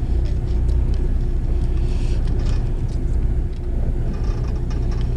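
A fishing boat's engine running steadily with a low hum, with a few light clicks of plastic octopus jigs being handled.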